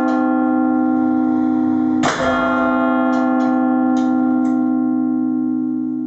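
Large clock-tower bell struck once by its clock hammer about two seconds in, over the still-ringing hum of an earlier stroke, with a long, steady ring full of overtones. A few light knocks follow, and the ring starts to fade near the end.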